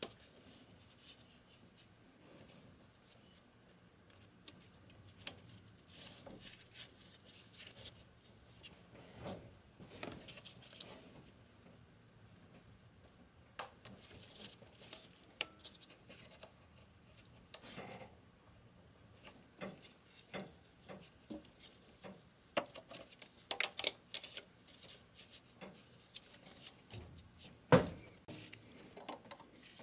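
Scattered light clicks, taps and knocks of gloved hands handling metal and plastic engine parts as a fuel return line on a Sprinter diesel is unclipped and worked free, with one sharper click near the end.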